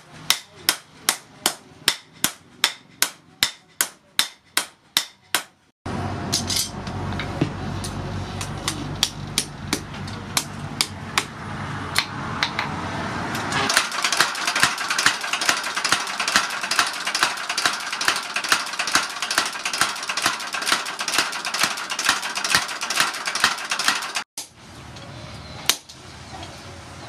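Hand hammer striking red-hot spring steel on a steel post anvil in a steady run of sharp blows, about three a second. After a cut about six seconds in, the blows come faster and closer together. They thin out to a few strikes near the end.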